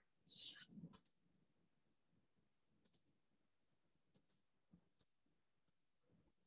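Faint computer mouse clicks, a scattered handful about a second apart, as settings are clicked through in a program.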